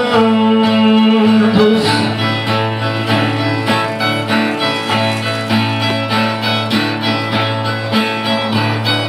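A man's voice holds the last word of a sung verse, then a Brazilian ten-string viola plays an instrumental interlude of quick plucked phrases over a steady low drone from its open strings.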